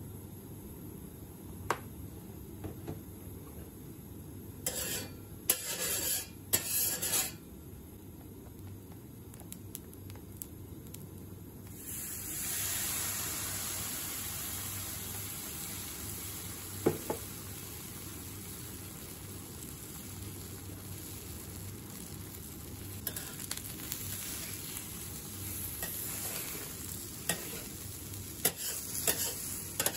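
Okonomiyaki batter frying on a hot steel teppanyaki griddle. It is quiet at first with a few brief noises, then a steady sizzle starts less than halfway through as the batter meets the hot oiled steel. Light spatula clicks come near the end.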